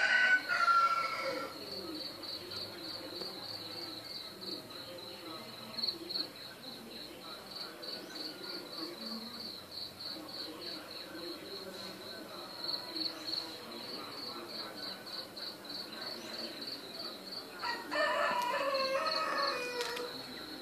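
An insect chirps steadily in an even, high-pitched pulse, several pulses a second. A rooster crows at the start and again near the end, each crow falling in pitch.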